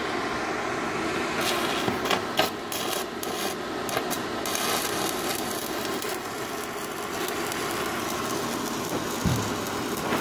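Stick (shielded metal arc) welding: the electrode's arc strikes about a second and a half in and runs with a steady crackling sizzle, sharpest in its first few seconds, over a steady background hum. A low knock comes near the end, and the arc stops right at the end.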